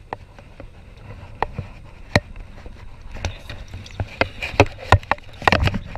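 A large snakehead thrashing at the surface as it is netted beside an aluminium boat: splashes and sharp knocks, few at first and then quicker and louder in the second half.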